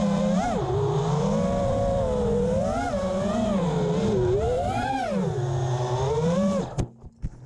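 FPV freestyle quadcopter's brushless motors whining, the pitch rising and falling with the throttle as it flies. Near the end the motor sound cuts off suddenly and a few sharp knocks follow as the quad crashes and comes to rest upside down.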